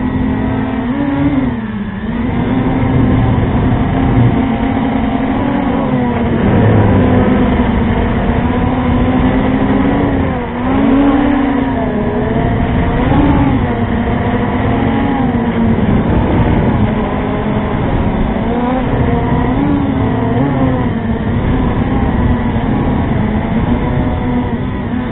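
Small quadcopter drone's motors and propellers buzzing, recorded from its own onboard camera. The pitch dips and rises again and again as the throttle is worked by hand to hold altitude.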